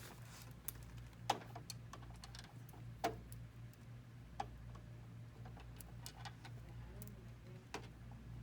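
Scattered light clicks and knocks of copier finisher parts being handled and seated while a hole punch unit is fitted, the sharpest about a second in and again about three seconds in, over a steady low hum.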